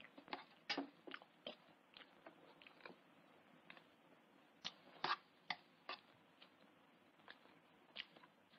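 A spoon clinking and scraping in a metal pan of beans while someone eats hungrily. The clicks are sharp and irregular, with the loudest about five seconds in.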